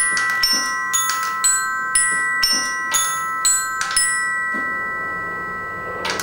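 Bearings Glocken, a glockenspiel played by steel ball bearings dropping onto its tuned bars: bright metallic notes about twice a second, the last about four seconds in, after which the struck notes ring on together and slowly fade. A brief clatter comes near the end.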